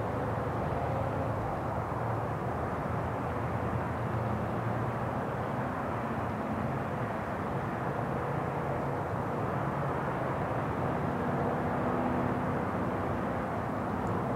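Steady low rumble of distant engine noise with a faint hum, unchanging throughout.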